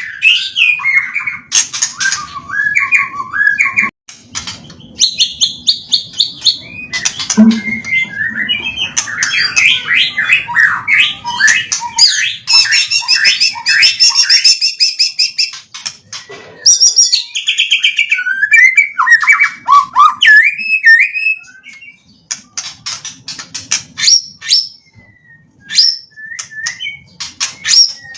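White-rumped shama (murai batu) singing a long, varied song packed with mimicked phrases of other birds: whistled notes and glides, rapid trills, and runs of sharp ticking calls, with a few brief pauses.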